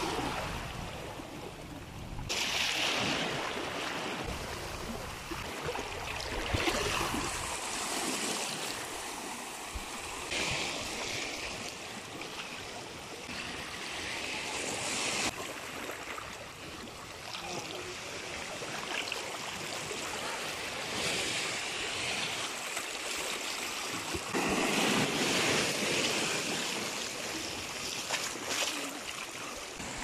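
Small sea waves washing in over a rocky shore and surging through a narrow channel between the rocks, the rush of water swelling and falling back several times.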